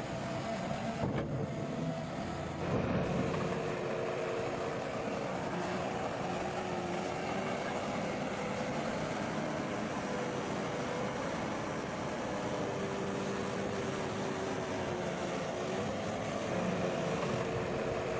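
Bulldozer's diesel engine running steadily under load, its pitch rising and falling a little as it works.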